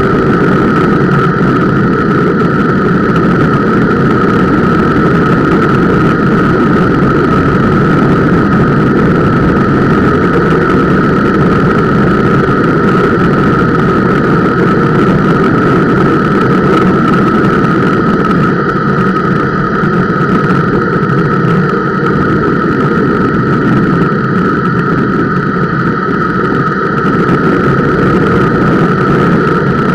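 Bicycle disc brake squealing steadily at one high pitch under light, partial braking on a descent, over the rushing of its semi-metallic brake pads, carried loudly through the camera mount. The squeal is put down to the Centerlock rotor mounting.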